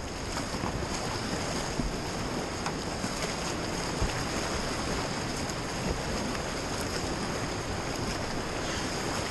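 Steady rush of whitewater in a steep river rapid, heard from right on the water, with a few light knocks.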